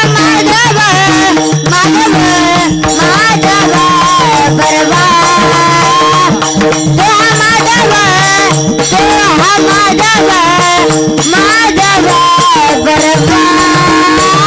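Marathi devotional kirtan music: a singer draws out a gliding, ornamented melody with no clear words, over a steady drone and jingling percussion on the beat.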